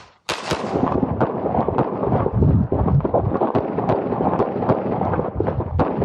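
Handgun shots fired in rapid succession, about two to three a second, starting suddenly just after the shot timer's start beep. A competition shooter is running a stage.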